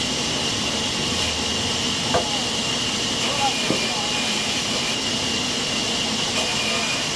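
Sawmill saw running steadily, a continuous hiss with a high steady whine, with a few faint knocks.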